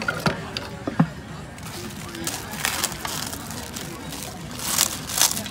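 Serving spoon knocking against a clay som tum mortar, three sharp knocks in the first second, then a rustling, hissing noise that grows louder near the end.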